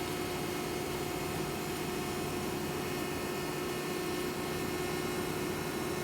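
Welding arc burning steadily while laying the back-bead (root pass) on a pipe joint: an even hiss with a constant hum.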